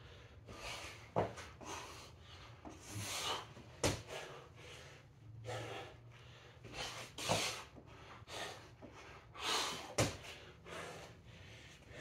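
A man breathing hard as he recovers from exertion, with a heavy breath every second or two. Four short sharp knocks come at roughly three-second intervals.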